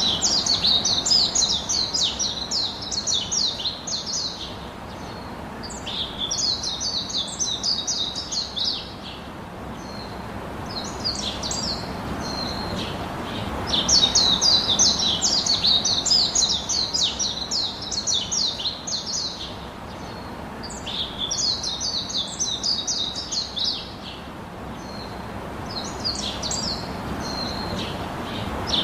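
Small birds chirping in rapid, high twittering bursts of a few seconds each with short pauses between, over a steady background hiss; the sequence of bursts repeats about every fourteen seconds.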